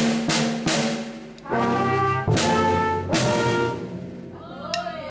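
Brass and percussion playing the coda of a piece: four loud held chords, each opening with a sharp percussion hit, then a softer passage that fades toward the end.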